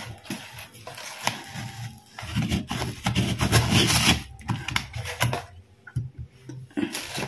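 Large knife pressed down through a chilled, firm batik cake of Marie biscuits set in Nestum, crunching and cracking through the biscuit layers with many small clicks, the blade scraping against the plate beneath.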